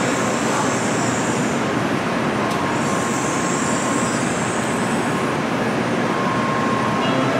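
Steady train noise. A high hiss fades out about a second and a half in and comes back from about three to five seconds in.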